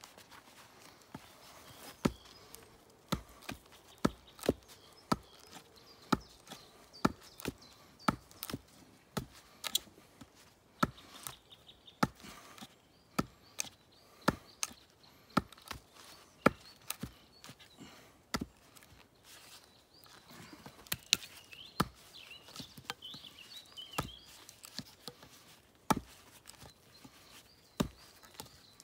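Repeated sharp wooden knocks, about one or two a second, as the tip of a 1075 carbon-steel bushcraft knife is driven into a wooden stump to test whether the tip will snap. After a short pause about two-thirds of the way through, the knocks come lighter.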